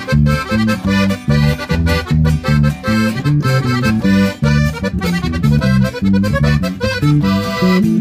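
Sierreño band playing an instrumental passage. A button accordion carries the melody over a strummed twelve-string acoustic guitar and an electric bass line.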